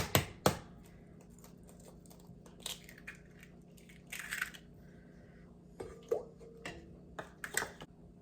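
Large eggs being cracked for cake batter: three sharp taps of shell against the bowl near the start, then quieter scattered clicks and rustles as the shells are handled.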